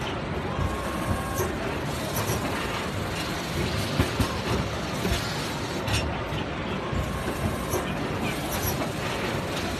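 A hybrid hydraulic-electric injection moulding machine (285AE-HB STM) running its cycle, with steady mechanical noise and scattered clicks and knocks, over exhibition-hall noise.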